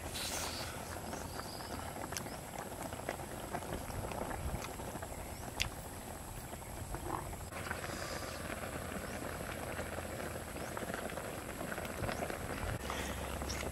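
A short noisy burst as a bite is taken from a cooked turtle shell, then steady background noise with scattered faint clicks and small handling sounds.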